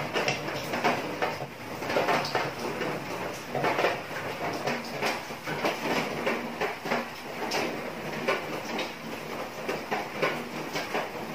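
Soda and oyster-sauce braising liquid boiling hard in a frying pan around a whole chicken, a dense, irregular bubbling and popping as the sauce reduces and thickens.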